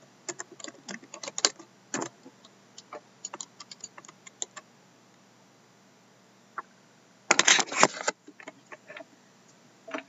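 Computer keyboard typing and clicking in irregular bursts: scattered key taps for the first few seconds, a quiet pause, then a quick, louder run of keystrokes about seven seconds in.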